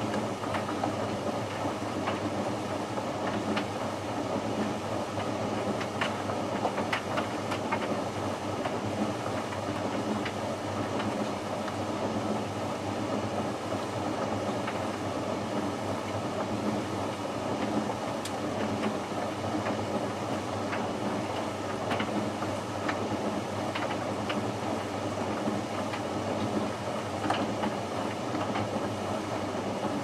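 Hoover VisionHD VHC 681B condenser tumble dryer running on its bone-dry sensor cycle: a steady hum from the motor and fan as the drum turns, with scattered light clicks from the tumbling load.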